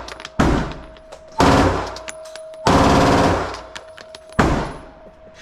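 Gunshots fired at a shooting range: four loud shots spaced about a second to a second and a half apart, with fainter sharp cracks between them.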